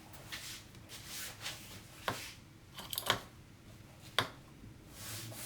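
Light handling of kitchenware at a plated pasta dish: a few sharp clicks of a utensil against a plate, about two, three and four seconds in, with soft rustling between them.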